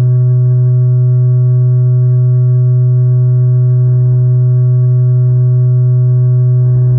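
Loud, steady electronic test tone of a TV colour-bar 'no signal' screen: a low hum with fainter higher tones above it, unchanging throughout.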